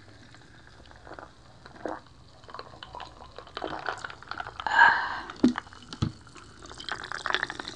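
Swallowing cola from a glass mug, then cola poured from a plastic bottle into the mug near the end, with small splashing and crackling. A short ringing sound about five seconds in is the loudest moment.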